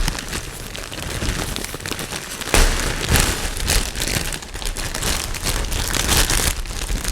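Plastic packaging crinkling and rustling as a building-block set's contents are handled and unpacked, with a louder burst of rustling about two and a half seconds in.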